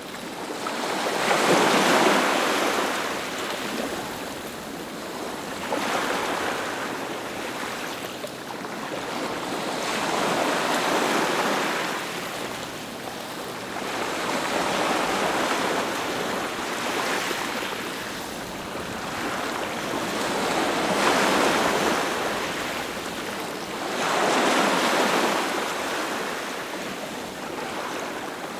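Ocean surf: waves breaking in a hiss that swells and fades about every four to six seconds, the loudest near the start.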